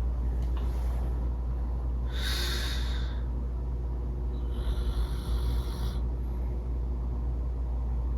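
A sleeping man snoring heavily, with two harsh snoring breaths, one about two seconds in and a longer one about four and a half seconds in, over a steady low hum. He snores this hard despite having used an anti-snoring nasal spray, which he judges had no real effect.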